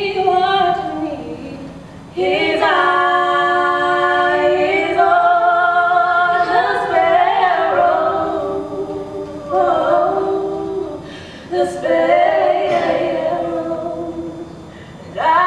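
A young woman singing solo and unaccompanied: phrases of long held notes, several with vibrato, broken by short breaths.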